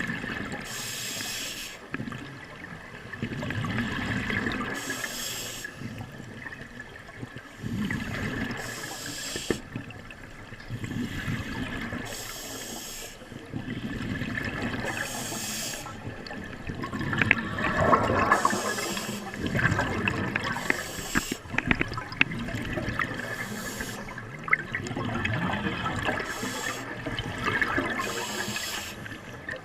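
Water sloshing and splashing, with a surge of hiss about every three to four seconds and a busier, louder stretch a little past the middle.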